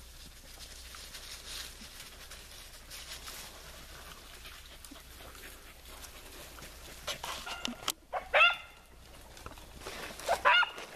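A beagle barks twice, short bays about eight seconds in and again near the end. Before them there is faint rustling of brush.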